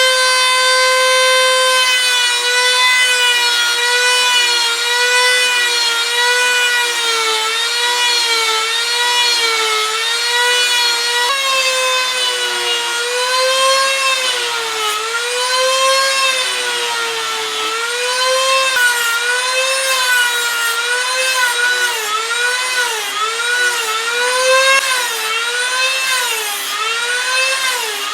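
Power grinding tool shaping the steel of a leaf-spring knife blade: a high motor whine that holds steady at first, then keeps dipping and recovering in pitch as the steel is pressed against it.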